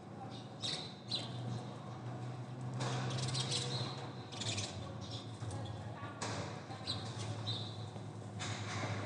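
Small birds squabbling: short high chirps and squawks, broken by several bursts of scuffling, flapping noise.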